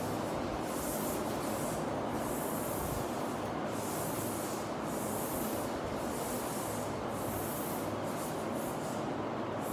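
Chalk rubbing back and forth across a blackboard as an area is shaded in, with a scratchy stroke about every second.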